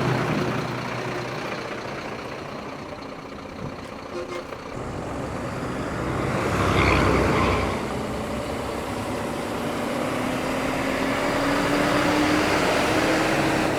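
Loaded lorry engine running as the truck pulls away. There is a louder rush of noise about seven seconds in, then the engine note rises slowly as it gathers speed.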